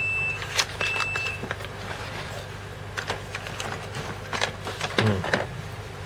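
Cardboard medicine box being opened and handled: scattered crackles, taps and clicks over a steady low hum. Two short high electronic beeps come at the start and about a second in.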